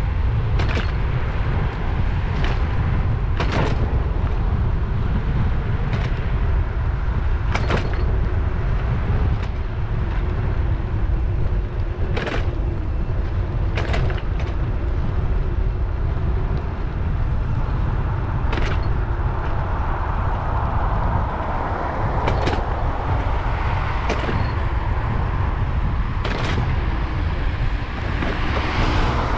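Wind buffeting the microphone of a bicycle-mounted camera while riding, a steady low rumble, with sharp clicks every second or two as the bike rolls over bumps and cracks in the path. Near the end a car passes on the road alongside with a rising hiss of tyres.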